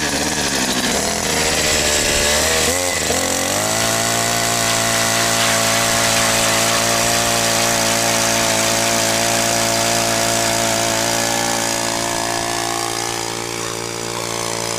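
Homemade gas ice auger powered by a string-trimmer engine, running unevenly at first, then revving up about three and a half seconds in and holding a steady high speed as the bit drills down through the ice.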